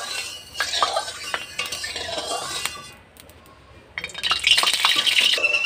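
Metal spoon scraping and clinking against a metal karahi while oil is stirred as it heats. The stirring stops for about a second midway, then resumes louder and faster.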